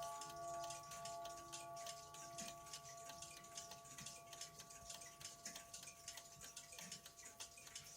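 Mantel clock running after repair: its chime tones ring on and die away over the first few seconds while the movement ticks steadily.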